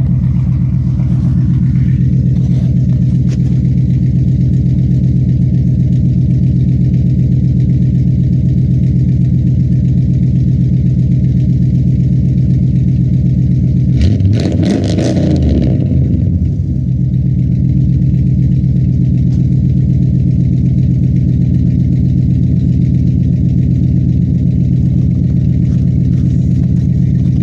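GMC Sierra pickup engine idling steadily, with one quick rev that rises and falls back to idle about halfway through. One exhaust manifold gasket is freshly replaced; the owner says a small exhaust leak remains on the other side.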